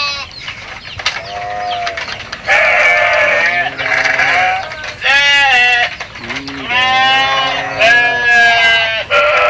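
Several goats bleating in turn, about seven calls, some deep and some higher-pitched, each less than a second long.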